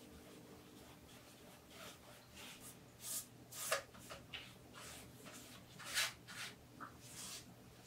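Paintbrush stroking and dabbing acrylic paint onto a stretched canvas: a series of short brush strokes, the first about two seconds in, the loudest near the middle and again about six seconds in.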